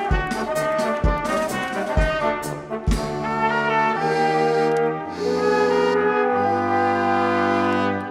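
Live brass and wind ensemble (trumpet, trombone, French horn, tuba, clarinet) playing with a drum kit marking about one beat a second. About three seconds in the drums drop out and the winds hold sustained chords that change every second or so, breaking off just before the end.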